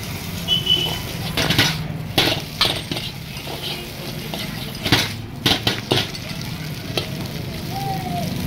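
Metal ladle scraping and clanking against a large iron wok at irregular intervals as vegetables are stir-fried, over a constant sizzle of hot oil and a steady low hum.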